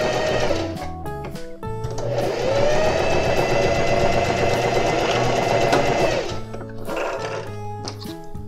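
Singer Facilita Pro electric sewing machine sewing a straight stitch through fabric in two runs. The first stops about half a second in. The second starts about two seconds in with the motor whine rising as it speeds up, runs steadily, and stops about six seconds in.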